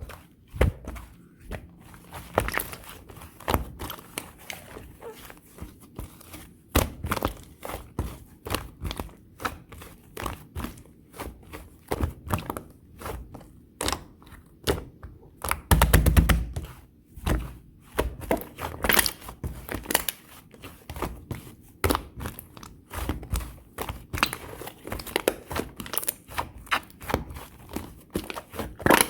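Pink clear slime with clay mixed in being kneaded, pressed and stretched by hand, giving dense, irregular sticky clicks, pops and crackles, with a louder stretch of pressing about halfway through.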